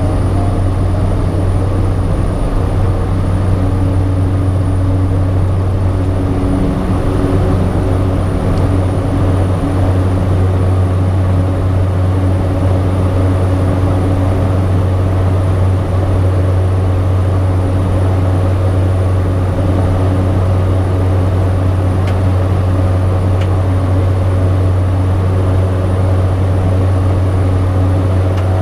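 Cessna 208 Caravan's PT6A turboprop engine and propeller droning steadily at takeoff power, heard from inside the cockpit as the aircraft lifts off and climbs out.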